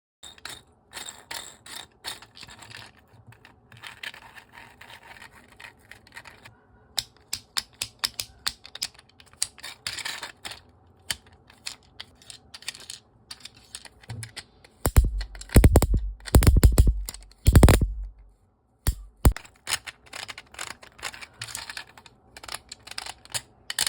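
3D-printed plastic multi-function fidget toy being worked by hand: a long run of quick clicks, taps and scratchy slides. For a few seconds about two-thirds of the way through it gives a much louder, deeper rattling.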